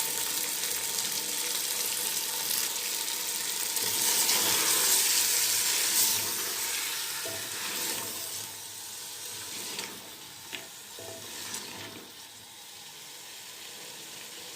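Meat curry with potatoes, onions and tomatoes sizzling in the pot as the last of its liquid cooks off, a steady hiss that grows quieter after about six seconds. A few light knocks come in the second half.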